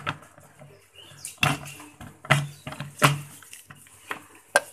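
Kitchen utensils knocking and clinking against a stainless steel pressure-cooker pot of boiled tomatoes: about five separate sharp knocks spread over a few seconds.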